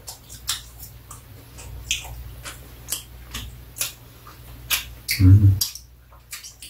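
Eating sounds: chopsticks clicking and tapping against a sauce bowl and a plate of cheese sticks, scattered sharp ticks about two a second. A short murmured voice about five seconds in.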